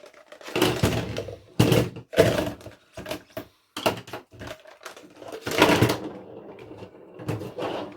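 Loose batteries clattering in a cup and clicking into the radio transmitter's battery compartment: a busy run of sharp clacks and rattles, loudest about two seconds in and again just before six seconds.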